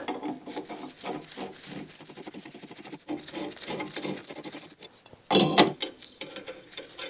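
Steel puller parts clicking and rubbing as a puller crossbar and its threaded rods are fitted onto a bearing separator clamped behind a car's wheel hub bearing. A louder metallic clatter comes about five seconds in.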